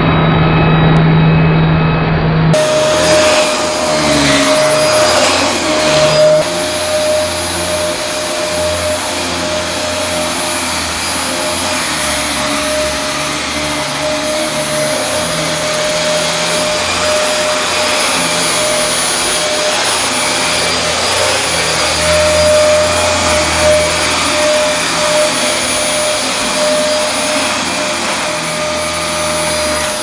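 Dyson DC24 upright ball vacuum cleaner running while being pushed over carpet and rugs: a steady motor whine over rushing airflow noise.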